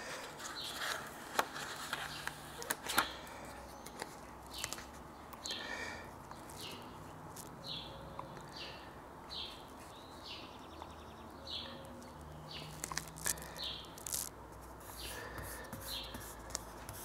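Hands applying a vinyl laptop skin: light clicks and crinkles from handling the skin and its paper backing. Between them comes a series of short high squeaks, about one a second, as the vinyl is rubbed down.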